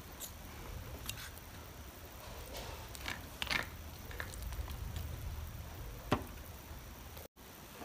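Spoon and fork clicking and scraping as pieces of fried fish are served onto a banana leaf on a plate: a few light, scattered clicks, the sharpest about six seconds in.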